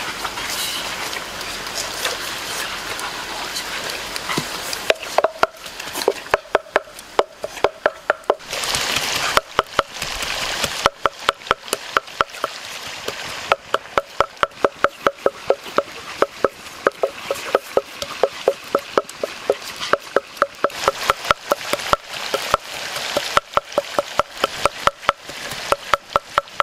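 Pork ribs frying in oil in a cast-iron pan: a steady hiss, then from about five seconds in, rapid sharp pops of spitting fat, several a second.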